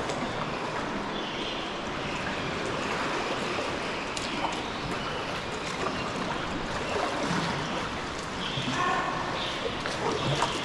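Sea water sloshing and trickling around a sea kayak, with a few sharp clicks.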